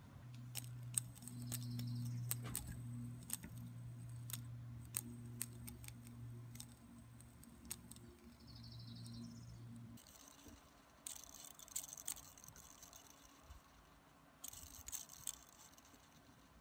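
Small hand-built Lego fidget spinner being spun and handled between the fingers: many light plastic clicks and brief rattles of Lego bricks. A low steady hum runs under the first ten seconds and stops suddenly.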